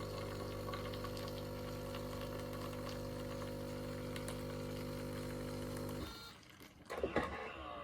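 Siemens bean-to-cup coffee machine's pump humming steadily as it dispenses coffee, cutting off about six seconds in as the brew cycle finishes, followed by a couple of clicks.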